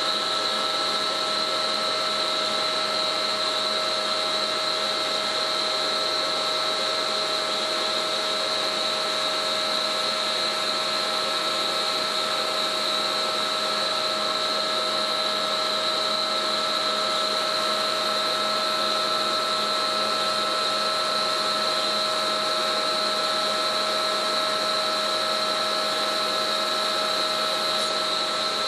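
Hydraulic winch test stand running: a steady mechanical whine from the hydraulic pump and winch motor, with a high-pitched tone that holds level and does not change.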